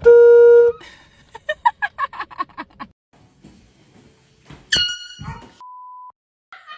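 A handheld air horn blasts once for under a second, the loudest sound here. It is followed by a person's rapid high-pitched cries, a sudden knock with a high-pitched sound about five seconds in, and a short steady beep.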